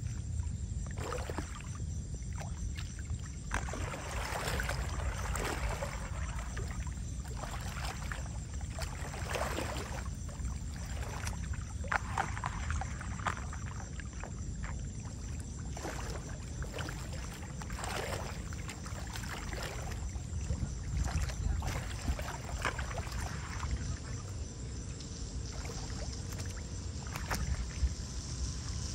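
Shallow floodwater sloshing and splashing in irregular swishes as someone wades and works in it, over a steady low rumble.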